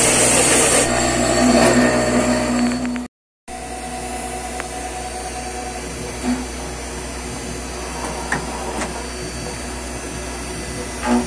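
CNC machining center spindle driving an end mill through a glued-up wooden pattern block: a steady machine whine with the hiss of cutting wood. It is loud for about the first three seconds, cuts out briefly, then carries on quieter and steadier with a few light clicks.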